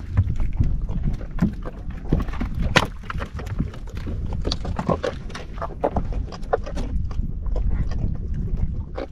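Low rumble of wind and sea against a small boat's hull, with a string of short knocks and taps as fish and hand line are handled on deck.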